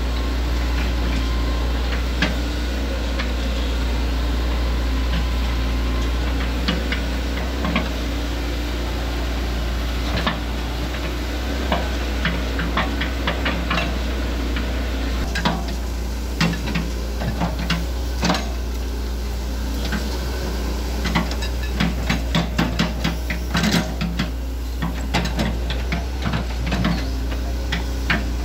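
Hitachi ZX110MF excavator's diesel engine running steadily, with many sharp metallic clicks and clanks from its steel crawler tracks and undercarriage, growing busier in the second half.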